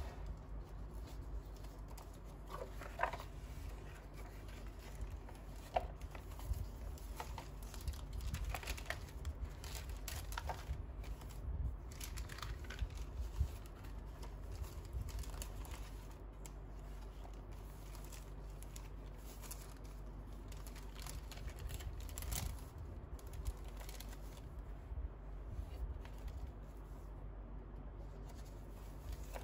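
Paper pages of a handmade junk journal being turned and handled: irregular rustling and crinkling of kraft and tissue-paper pages, with a few sharper page snaps in the first half.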